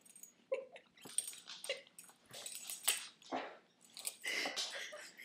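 Dogs making a scatter of short sounds: a few brief low vocal noises among quick rustles and light knocks.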